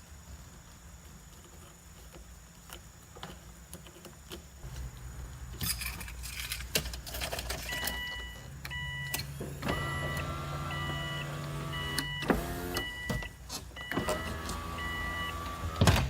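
Power window motor of a 2003 Subaru Legacy wagon whining as it runs the glass up against newly fitted weatherstripping, twice, while the car's warning chime beeps about once a second. Clicks and rustles of handling come before the motor runs.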